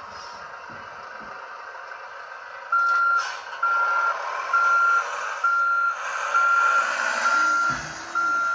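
Reversing beeper of a Tamiya 1/14 scale RC truck's electronic sound unit: a steady high beep, about half a second long and repeating about once a second, begins about three seconds in over a steady hiss, signalling the truck is backing up.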